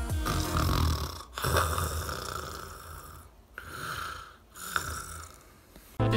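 A person snoring: four noisy breaths separated by short pauses, growing quieter. Music starts abruptly at the very end.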